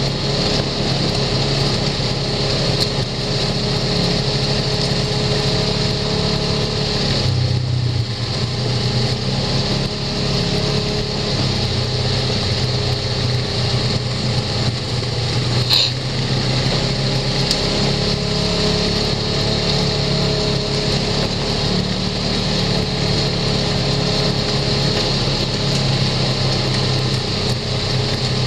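Side-by-side UTV engine running steadily as it drives along a dirt trail, heard from inside the cab, with the engine note shifting lower about seven seconds in.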